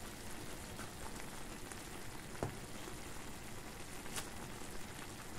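Noodles and vegetables sizzling in a frying pan: a steady even hiss, with two short clicks about two and a half and four seconds in.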